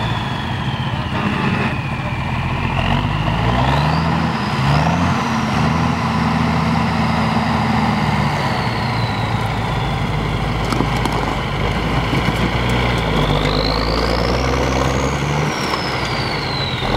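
Engine of a big lifted military-style six-wheel mud truck running and revving up several times as it drives onto a car, with a high whine that rises and falls alongside the revs. A few sharp cracks sound about two-thirds of the way in.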